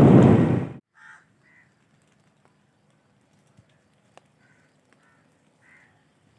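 Wind buffeting the microphone, cut off abruptly within the first second; then a few faint crow caws, spaced a second or more apart, over near silence.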